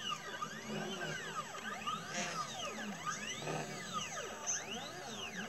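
Stepper motors of a CNC 2418 desktop machine driving its laser engraving head: a whine that rises and falls in pitch over and over, about once a second, as the head speeds up and slows down on each short move of the engraving.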